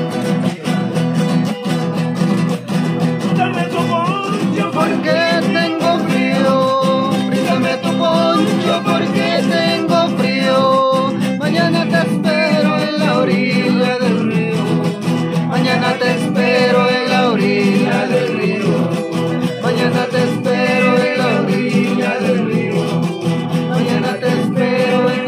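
Two or more nylon-string acoustic guitars strumming and picking a Latin American song together, with a man singing the melody from a few seconds in.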